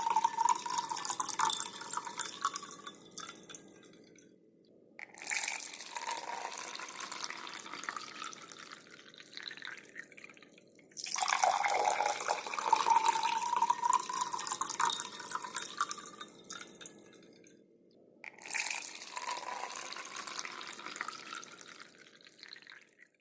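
Water filling a drinking glass, repeated as separate fills: one already running at the start, then new ones starting about 5, 11 and 18 seconds in, each fading out before a brief pause. Within each fill a faint ringing tone rises in pitch as the glass fills up.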